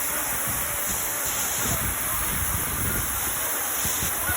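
Steady rushing noise of a waterfall pouring down.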